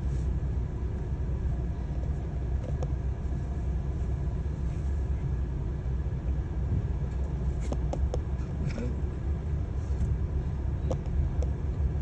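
Steady low rumble inside a stopped car's cabin, its engine idling, with a few faint clicks late on.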